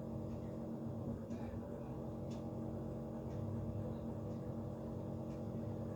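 Quiet room tone: a steady low hum with faint ticks about once a second.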